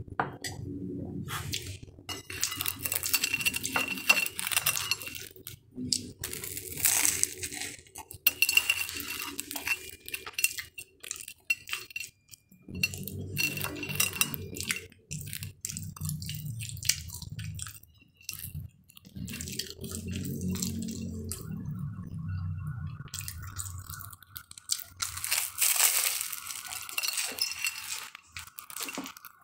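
Eating an egg-and-cheese sandwich close to the microphone: bites and chewing, with clinks of a plate and handling noises.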